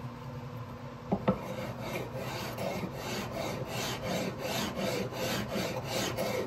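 Sandpaper on a sanding block rubbed back and forth along the fingerboard of a 1947 Martin guitar neck, about three strokes a second. Two short knocks come about a second in, just before the strokes start.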